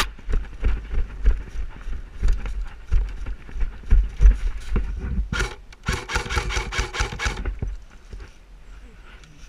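Airsoft gun firing a quick string of sharp shots for about a second and a half, just past the middle, after a run of low thuds from movement and wind on the microphone.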